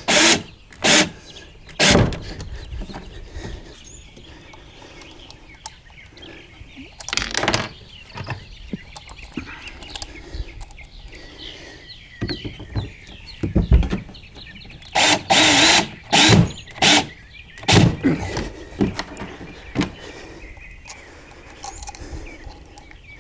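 About ten sharp knocks and clicks scattered through the stretch, with a longer rattling burst about fifteen seconds in: a Hobie Twist and Seal hatch ring and its screws being worked on a plastic kayak deck and snugged down.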